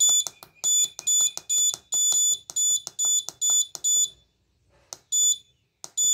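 Piezo buzzer on an Arduino clock board giving a short high beep with each press of the decrement button while the minutes are being set: a quick run of about ten beeps, two or three a second, then a pause and two more beeps near the end.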